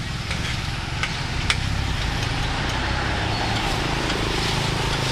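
Hot oil sizzling steadily in a wok of deep-frying battered fritters, with a few faint crackles, over a steady low rumble.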